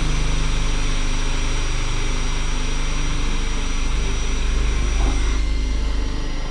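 Cordless drill running steadily at speed, its bit boring a starter hole through a laminate-faced board for a jigsaw cutout, with a thin high whine over the motor. The level dips slightly about five and a half seconds in.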